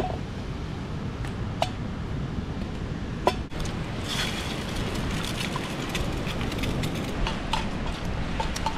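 Metal clinking on a stainless steel camp pan. In the first few seconds there are a few sharp single clicks as a knife cuts jerky sticks over the pan. After about three and a half seconds comes a run of quick, light clinks and scrapes as a utensil stirs eggs in the pan.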